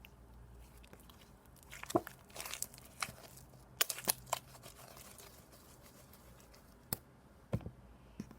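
Thin, glossy slime being squeezed and stretched by hand, giving off sharp clicks and pops at irregular intervals, a cluster of them from about two seconds in and a few more near the end.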